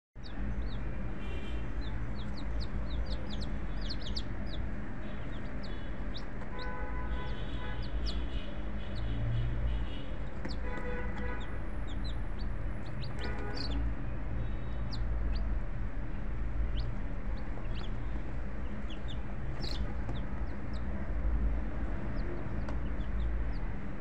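Chickens clucking, with a few longer calls, over many short high chirps and a steady low rumble.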